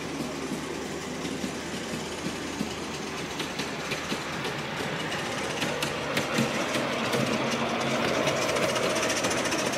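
A ride-on miniature locomotive and driving truck running along a raised track, its wheels clicking over the rail joints. The clicking grows louder as the train comes closer and passes.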